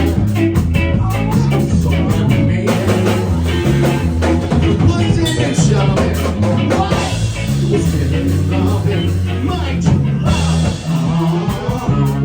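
Live band playing a song with a steady beat.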